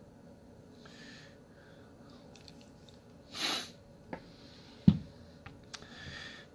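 A person breathing through the nose close by, with one sharp sniff about three and a half seconds in, while paracord is handled on the jig. The handling gives a few small clicks and one sharp knock about five seconds in, the loudest sound.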